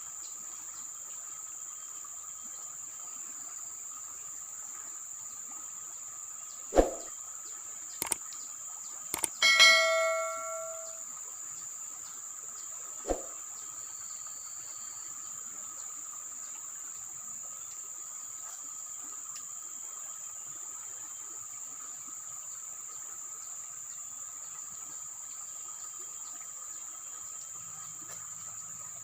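Steady, high-pitched drone of insects chirring. A few sharp clicks come about seven to nine seconds in and again around thirteen seconds, and a brief ringing, bell-like tone sounds about ten seconds in.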